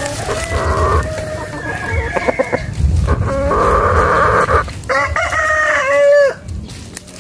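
Roosters crowing with chickens calling, at normal loudness. Two long crows come in the middle, the second ending in a falling note.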